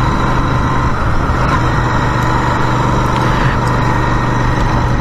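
Royal Enfield motorcycle being ridden at a steady cruise: an even engine hum over continuous road noise.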